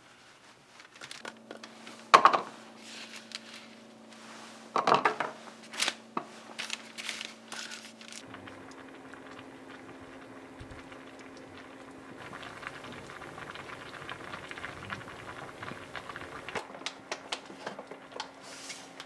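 Kitchen handling sounds: a few sharp knocks and clatters in the first half, the loudest about two seconds in, then lighter crinkling and small clicks over a low steady hum.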